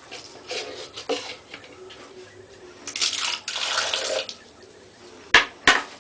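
Water splashing and pouring in a bathtub, with a louder pour lasting about a second. Near the end come two sharp knocks of a hard plastic dish being set down on the tub.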